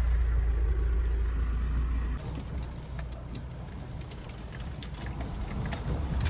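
Engine of a four-wheel-drive vehicle running as it drives off-road, a heavy low rumble. About two seconds in the sound cuts to a quieter stretch with scattered light clicks.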